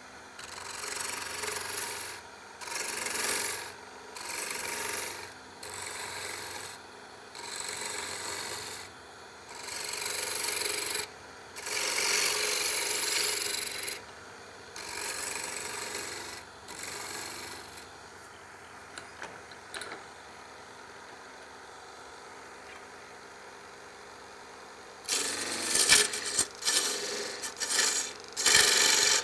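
Hand-held turning tool cutting a spinning walnut blank on a wood lathe, in a series of separate passes of a second or two each, each a scraping hiss as shavings come off. A lull of quieter running comes in the middle, then harder, choppier cuts near the end.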